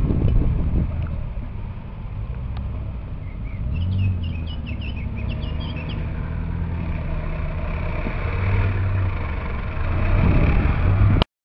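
Suzuki Jimny's engine running at low revs with a steady hum, picking up a little about four seconds in and again near the end. A bird chirps a quick run of notes in the middle. The sound cuts off suddenly just before the end.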